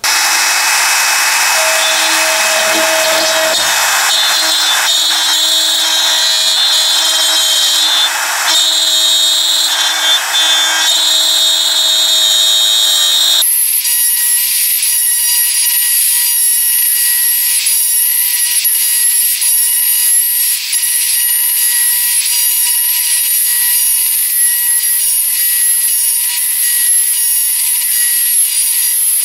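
Makita compact trim router running and cutting a bow-tie inlay recess into a wooden board. The loud whine starts abruptly, then changes sharply about 13 seconds in, turning thinner and higher for the rest.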